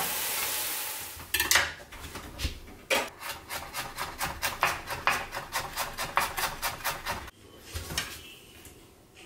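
Brief sizzle of vegetables stir-frying in a frying pan, then a chef's knife slicing a carrot into thin strips on a cutting board: a quick, even run of knife strokes, about four a second, with a few more strokes near the end.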